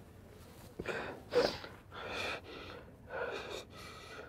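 A person close to the microphone gasping and snorting under their breath, in about six short breathy puffs.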